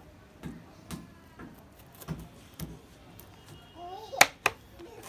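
Kitchen knife chopping pufferfish flesh on a plastic cutting board: a series of sharp knocks as the blade strikes the board, about six in all, the loudest about four seconds in.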